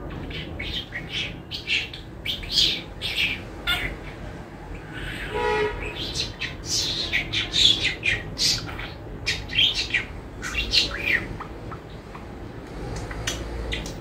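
Budgerigar chattering in quick, short chirps and warbles. The calls thin out after about twelve seconds.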